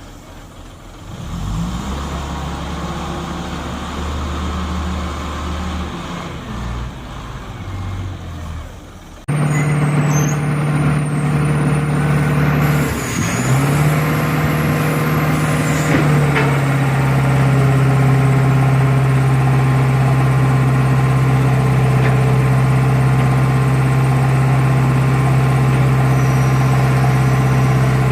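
Heavy construction machines' diesel engines running. One engine starts up about a second in. About nine seconds in the sound cuts abruptly to a louder engine that runs steadily, dipping briefly once.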